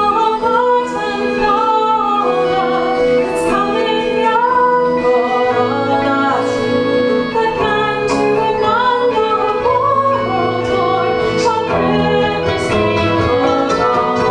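Celtic band playing live: a wavering melody line over a steady held drone note.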